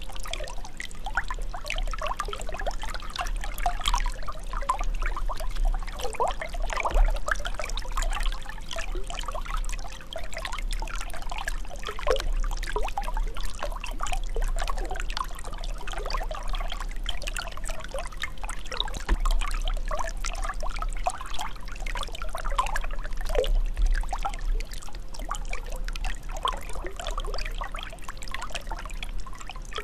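Running water: a steady, dense rush of many small splashes over a constant low rumble.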